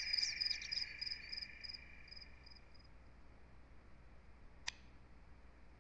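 Crickets chirping in a quick even rhythm, about four chirps a second, fading out over the first three seconds. A single sharp click follows about two-thirds of the way in.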